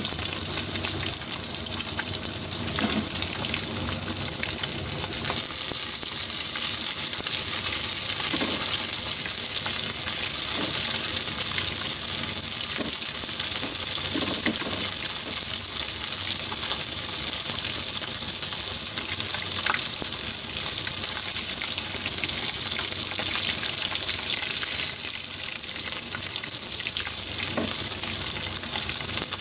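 Floured black sea bream bones and trimmings deep-frying in a pan of hot oil: a loud, steady, dense sizzle, with a few faint knocks from the chopsticks turning the pieces.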